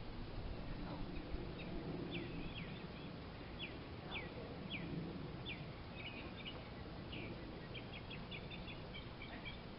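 Small birds chirping: a run of short, sharply falling chirps about every half second, breaking into a quicker twitter near the end, over faint steady outdoor background noise.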